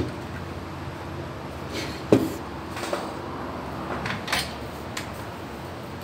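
A printed circuit board turned over and set down on a workbench, with one sharp knock about two seconds in, followed by a few lighter clicks and taps of handling.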